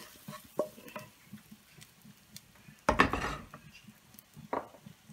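A wooden spatula scrapes and taps a frying pan as curry is emptied into a bowl. About three seconds in, a loud clunk comes as the pan is set down on the gas stove's iron grate. A few lighter scrapes follow.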